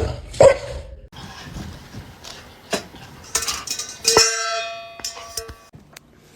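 A metal object is struck about four seconds in and rings with a clear clang for about a second. Lighter knocks and clicks come before it.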